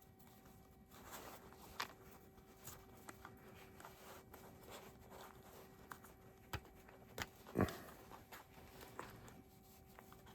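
Faint scattered clicks and taps of hands handling a new starter cord and the plastic recoil-starter parts. The loudest tap comes a little past halfway, and a faint steady hum runs underneath.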